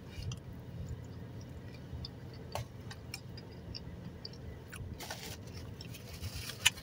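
Quiet eating sounds: soft chewing with scattered small clicks, and a paper napkin rustling near the end.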